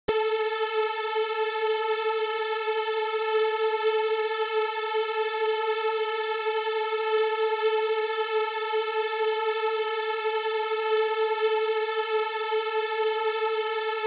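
Sixteen slightly detuned sawtooth wavetable oscillators in a Pure Data patch, sounding together as one steady, rich buzzing tone at 440 Hz that starts abruptly. Randomised delays between the copies leave only a mild phasing shimmer in the tone.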